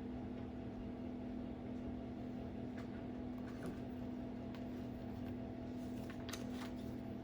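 Room tone: a steady low hum with a few faint brief clicks.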